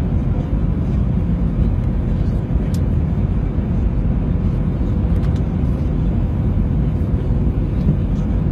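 Airliner cabin noise heard from inside the plane: a loud, steady low rumble of engines and rushing air, with a faint steady hum.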